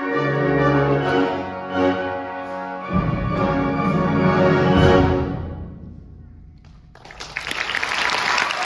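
Concert band holding its closing chords, with a low percussion hit coming in about three seconds in; the last chord swells and rings away into the hall. About seven seconds in, the audience breaks into applause.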